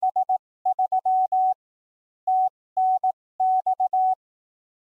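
Morse code beeps: a single steady tone keyed in dots and dashes, which read as '73' then 'TNX', the ham radio sign-off for best regards and thanks.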